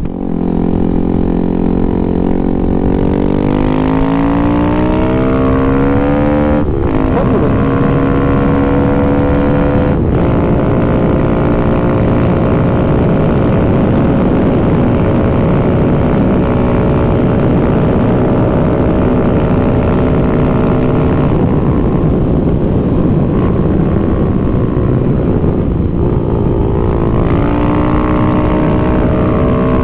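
Kawasaki Z125 Pro's 125 cc single-cylinder engine pulling away, revs climbing, then dropping with an upshift about seven seconds in. It then holds a steady cruise, eases off later on, and climbs again near the end.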